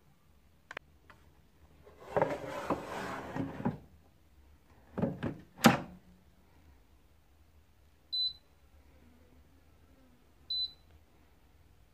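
An air fryer basket is slid into the machine with a scraping rattle, then clunks twice as it locks into place. Later come two short, high beeps from the air fryer's touch panel as its buttons are pressed.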